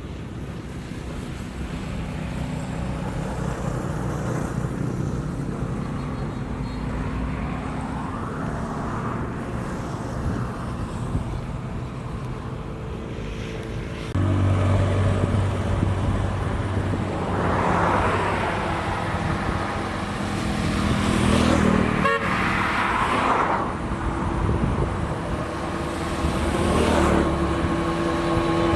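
Road traffic: a steady engine hum that gets louder about halfway through, then motor vehicles passing by several times, each rising and falling in pitch.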